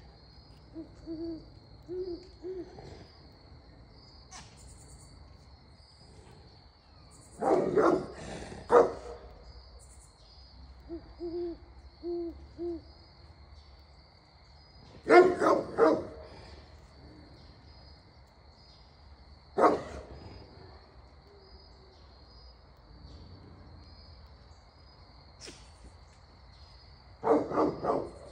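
A great horned owl hooting in two series of about four low, evenly spaced hoots, near the start and again about halfway in. Great Pyrenees livestock guardian dogs bark in short volleys four times, the loudest sounds, warning off the owl as a predator. A steady high insect trill runs underneath.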